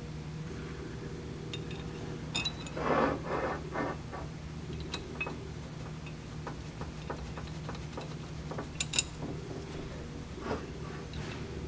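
Metal parts handled by hand: a steel shaft slid into a flange bracket with a short scraping sound a few seconds in, then scattered light metallic clicks and knocks, the sharpest about three-quarters through. A steady low hum runs underneath.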